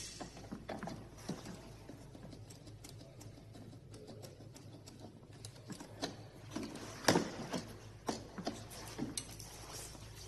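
Irregular light clicks and knocks over a faint steady hum, the loudest about seven seconds in.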